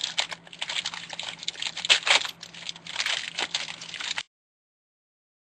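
Hands handling a trading-card box and its packaging: crinkling, clicking and tearing. The sound cuts off abruptly into dead silence about four seconds in.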